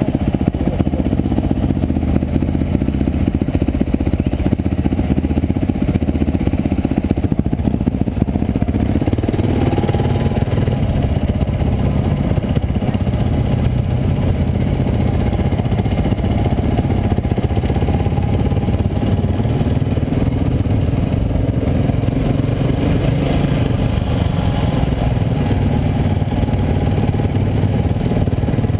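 Dirt bike engine running steadily, its sound shifting about nine seconds in.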